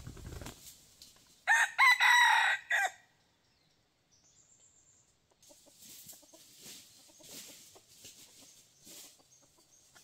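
Red junglefowl rooster crowing once, a loud call of about a second and a half that starts about a second and a half in.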